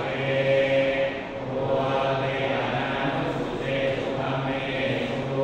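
Thai Buddhist monks chanting Pali verses in a steady, low recitation on held pitches, with short breaks between phrases: a consecration chant over amulets.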